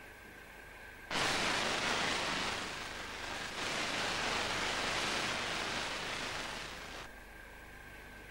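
A long burst of loud static hiss, like radio transmission noise, coming in suddenly about a second in, briefly dipping halfway through and cutting off about seven seconds in. A faint steady high tone sits under it.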